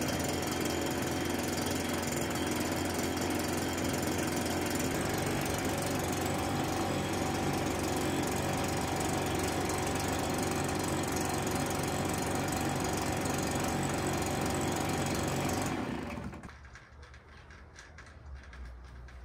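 Stihl backpack leaf blower's two-stroke engine idling steadily during a five-minute idle run. About sixteen seconds in, the sound drops away sharply to a faint low hum.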